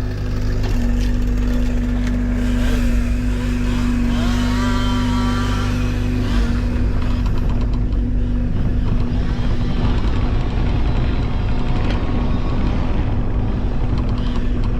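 Engine of a compact loader machine running steadily under a working load, with a constant low engine tone throughout.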